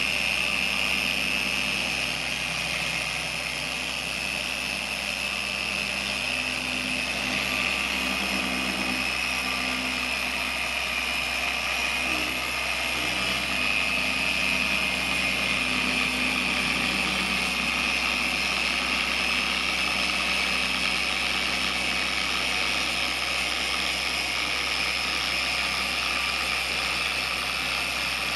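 Biltema PO150A dual-action (eccentric orbital) car polisher running steadily with its foam pad pressed on painted sheet metal, a loud, even whine with a strong high hum, during a finishing pass with fine polish on a soft pad to remove haze.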